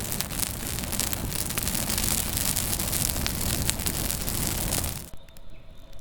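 Campfire burning with a dense rush of crackles and pops; about five seconds in it drops suddenly to a much quieter, sparser crackle over a faint hum.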